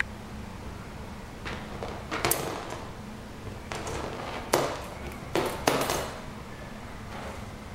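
A handful of short, sharp knocks and bumps, two of them close together near the end, over a steady low hum. They fit handling noise from a cat rubbing its head against the camera, the loudest bump about four and a half seconds in.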